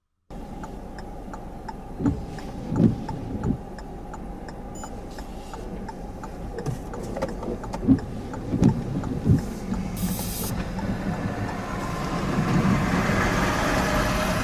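Truck running, a steady low rumble with several sharp thumps and a faint regular ticking. A rushing noise, like wind, grows louder near the end.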